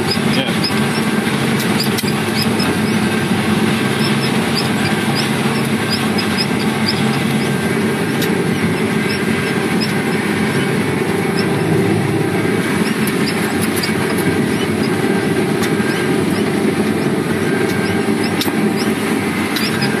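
John Deere 3520 sugar cane harvester running steadily under load while cutting cane, heard from its cab: a constant engine and machinery drone with many small ticks scattered over it.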